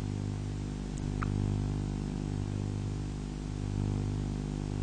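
Steady low electrical hum with a buzzy stack of overtones, the background hum of an old speech recording.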